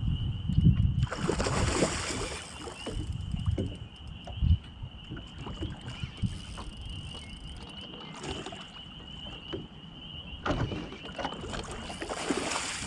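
Wind on the microphone and knocks and rushes of noise around a small fishing boat while a snagged pike is brought in, over a steady high whine.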